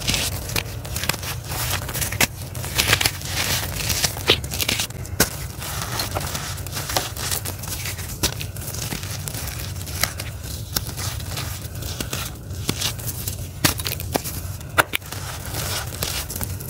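Gritty charcoal lumps crumbled and crushed between the fingers: a continuous crunching with many sharp snaps as pieces break off and crumbs fall onto powdery ground.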